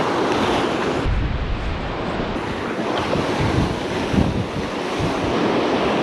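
Strong wind buffeting the microphone in gusts over the steady wash of breaking surf.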